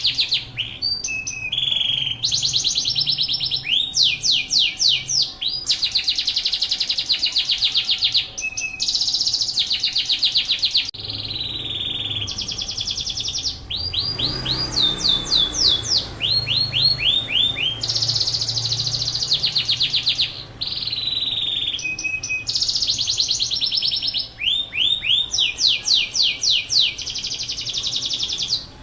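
Yorkshire canary singing without pause: a long, rolling song of fast-repeated chirps and trills, each phrase of quickly repeated sweeping notes lasting a second or two before the next begins.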